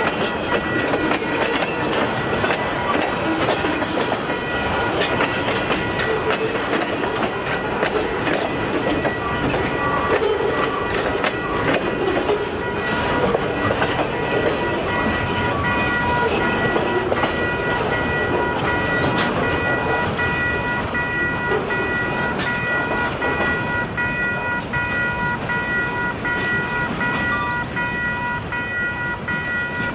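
Railway cars of a passing train rolling by, wheels clicking over rail joints, with several steady high-pitched tones ringing over the rolling noise.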